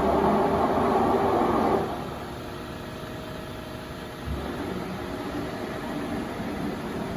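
Large CNC lathe running with a steady mechanical whir. The noise drops sharply after about two seconds to a lower steady hum, then rises a little about four seconds in.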